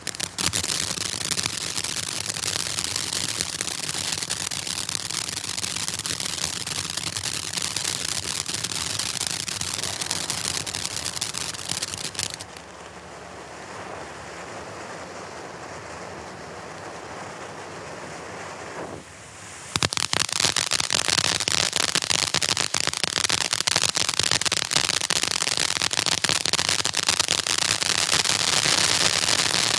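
Black Cat Tropical Thunder ground fountain firework spraying sparks with a dense hiss and rapid crackling. About twelve seconds in it drops to a quieter hiss, and at about twenty seconds loud, thick crackling breaks out again.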